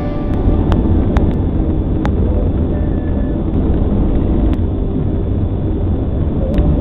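Steady low rumble of a vehicle driving, with a handful of sharp clicks scattered through it.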